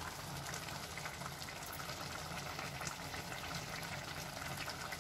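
Pot of rice and bitter field bean khichdi bubbling faintly and steadily, its water almost cooked off.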